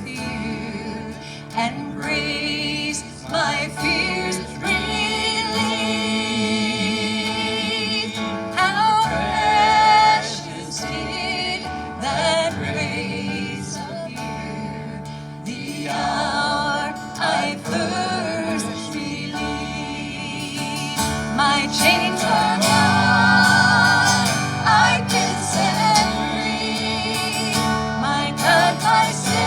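Gospel hymn music: singing over guitar accompaniment, with wavering pitch lines throughout.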